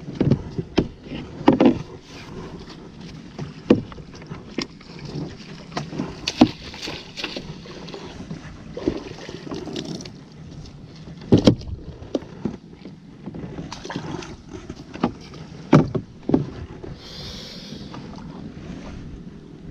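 Small boat being paddled: a wooden paddle knocks against the hull at irregular intervals and swishes through the water, the loudest knocks about halfway and near the end.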